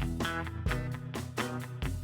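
Guitar music: plucked or strummed chords struck about twice a second over a steady bass line.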